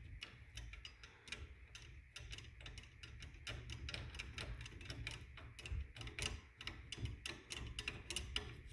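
Quick, irregular metallic clicking as the chain tension adjuster on a chain-drive garage door opener is turned by hand to loosen the chain, over a low hum.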